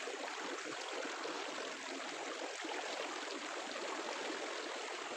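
Swift river current rushing steadily, a continuous even wash of flowing water.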